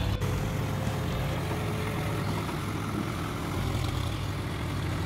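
John Deere 5045 D's three-cylinder diesel engine running steadily under load, pulling a rotavator through flooded paddy mud.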